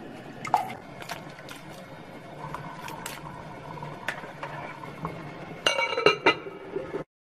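Light clinks of a metal mesh strainer and bamboo shoot strips against glass cookware. Near the end a glass lid is set onto a glass pot with a loud ringing clink, the loudest sound.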